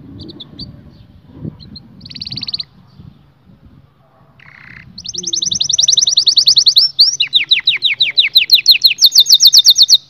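A white domestic canary singing: a few short chirps and a brief buzzy trill, then about halfway in, loud rapid trills (rolls) of quickly repeated notes. The trill drops to a lower pitch about two-thirds of the way in and switches to a higher one near the end.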